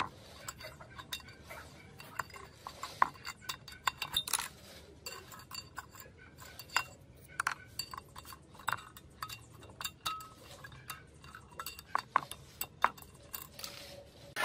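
Metal pushrods of a small four-stroke water-pump engine clinking and tapping against the engine block as they are worked loose and pulled out by hand. The clinks are light and irregular, and several ring briefly.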